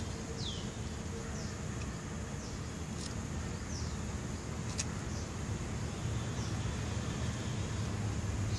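Outdoor background: a steady low rumble with short, high chirps that fall in pitch, repeating roughly once a second, and two faint clicks near the middle.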